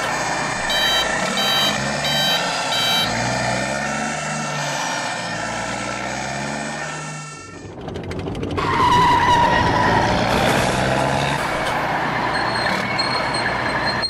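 Dubbed-in vehicle sound effects: an engine running with shifting pitch, with four short high beeps near the start. After a brief dip near the middle, a louder, rougher truck engine sound takes over.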